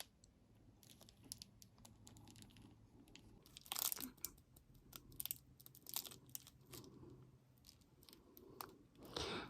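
Faint, scattered clicks and plastic crinkling from a jelly vinyl makeup bag and the makeup brushes inside it being handled.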